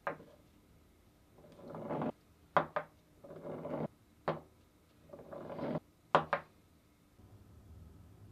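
The steel adjusting screw of an adjustable wrench being handled on a wooden workbench: a knock as it is set down, then three scrapes of metal on wood, each under a second long, with sharp knocks in between.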